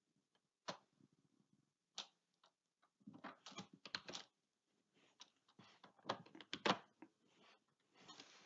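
Computer keyboard keys being typed in short, scattered runs of faint clicks: single taps, then small clusters of several keystrokes.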